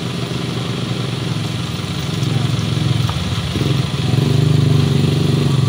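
Small motorcycle engine running as the bike rides slowly closer over the mud, getting louder about halfway through, over the steady running of queued vehicles' engines.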